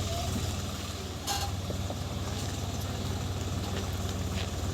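Heavy diesel engine running steadily with an even, low pulsing note, with one short clank about a second in.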